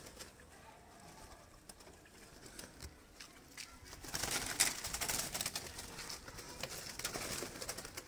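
Pigeons cooing faintly, then from about halfway a louder rustling with light clicks and knocks as a hand works inside a wooden, wire-mesh bird trap.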